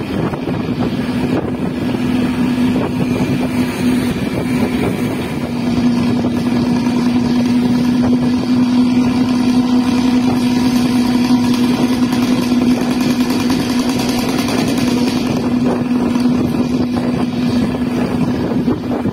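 Bus with a shrill Luragung-style aftermarket exhaust ('knalpot cempreng') droning steadily from close behind, one strong raspy note that swells a little about six seconds in.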